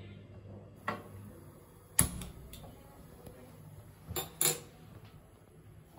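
A few sharp metal knocks as a pan is set and shifted on a gas stove's pan support: the loudest about two seconds in and a quick pair just after four seconds. Under them runs a faint steady high hiss.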